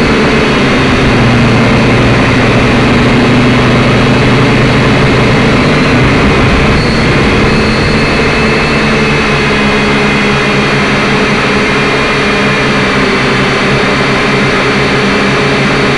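Syma X5C-1 quadcopter's small brushed motors and propellers running loud and steady in flight, picked up close by its onboard camera. The whine holds several pitches at once that drift slightly, with a shift about seven seconds in as the throttle changes.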